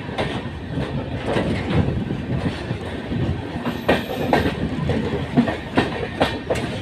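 Passenger express train running, its rumble broken by irregular clicks and knocks as the coach wheels pass over rail joints.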